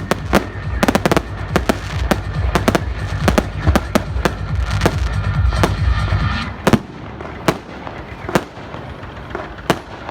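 New Year fireworks and firecrackers going off in quick succession: many sharp bangs and crackles over a low rumble. About two-thirds of the way through the rumble drops away and the bangs thin out to roughly one a second.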